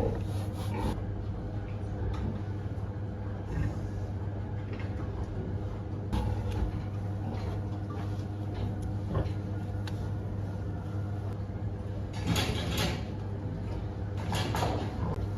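A steady low mechanical hum with scattered knocks and clatter, and two louder bursts of noise near the end.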